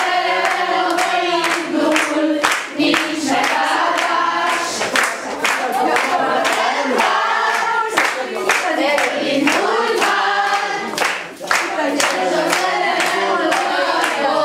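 A group of women singing a song together, with steady rhythmic hand clapping keeping the beat.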